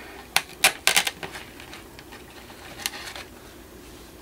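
Small plastic model-kit parts clicking and tapping against each other and the fingers as they are handled: a quick run of sharp clicks in the first second, then one more near the end.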